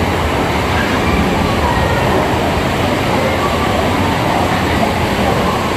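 Steady rushing noise of running water in a busy water park, with crowd voices faintly mixed in.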